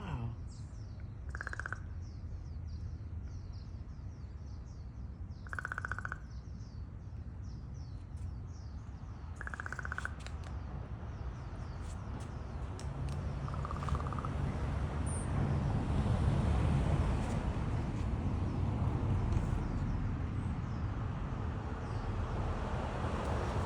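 A corvid (crow or raven) giving short runs of rapid, gentle clicks, a rattling call heard about three times in the first ten seconds, with a softer note near the middle. Small birds chirp faintly in the background, and a low rumble grows louder in the second half.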